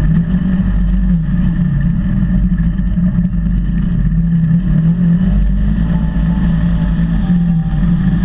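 Polaris RZR 900 side-by-side's twin-cylinder engine running steadily, with a low rumble and no big changes in revs.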